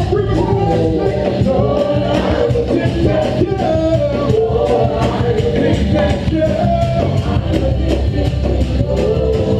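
Loud music with voices singing a melody over a steady beat.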